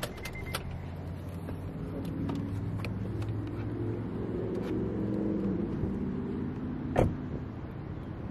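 A car engine running close by, its pitch rising and falling through the middle, with a few sharp clicks in the first second and a single loud knock about seven seconds in.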